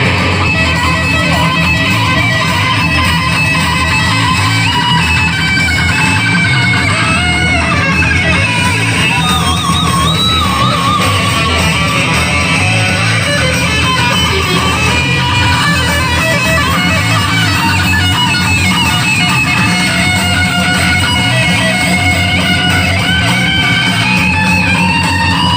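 Rock music with a bending electric-guitar lead over a steady bass beat, played loud through a miniature sound system with a 12-inch JIC 12060 subwoofer, JIC 06038 midrange and DA 34S tweeters.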